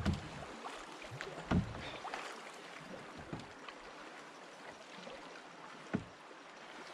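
Open canoe moving fast down a river: steady rushing and lapping of water along the hull, with a few dull knocks, one about a second and a half in and one near the end.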